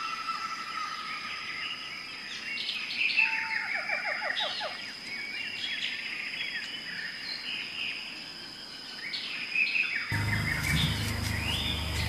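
Small birds chirping and trilling, several calls overlapping, over a steady high tone. A low rumble comes in suddenly about ten seconds in.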